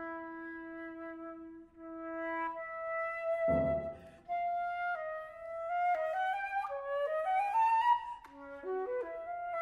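Flute and Yamaha grand piano playing contemporary chamber music. A long held flute note sounds over a sustained piano chord, and a second piano chord is struck about three and a half seconds in. After that the flute climbs in short stepwise phrases and quick runs.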